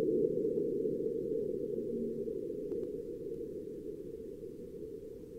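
Sped-up seismometer recording of a marsquake from NASA's InSight lander on Mars, made audible: a low rumble that slowly fades away, with a few faint clicks over it.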